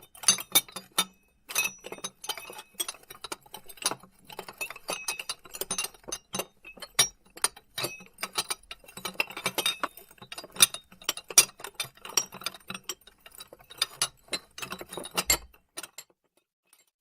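Glass plates and dishes clinking and knocking against each other, many irregular sharp chinks with short high ringing, stopping about a second before the end.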